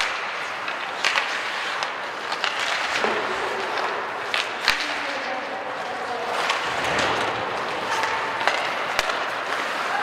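Ice hockey play: skate blades scraping and carving on the ice under a steady hiss, with irregular sharp clacks of sticks and puck striking sticks and boards.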